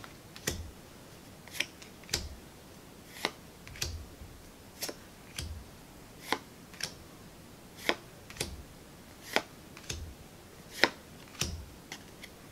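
Game cards laid down one at a time onto a pile on a cutting mat: short, light clicks of card on card, a little faster than one a second at an uneven pace.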